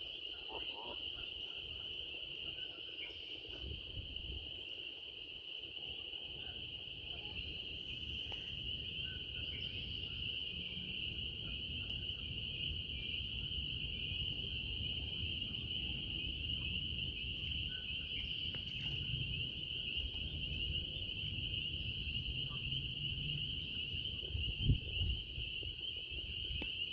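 A steady, high-pitched chorus of calling frogs, unbroken throughout, over a low rumble of wind on the microphone. There is a single brief knock near the end.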